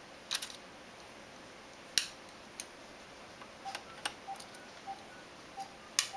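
Scattered sharp clicks and light taps of a small screwdriver and tiny screws against a laptop's plastic and metal case as the screen hinge screws are taken out, the loudest about two seconds in and near the end.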